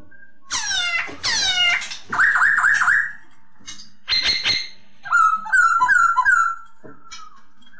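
A poksay laughingthrush singing loud, varied whistled phrases: two fast fans of descending notes, then a quick run of four repeated notes, a short burst, and a warbling run about five seconds in.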